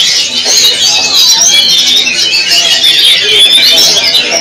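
Many caged songbirds singing at once: a loud, dense chorus of overlapping chirps, trills and whistles that never lets up.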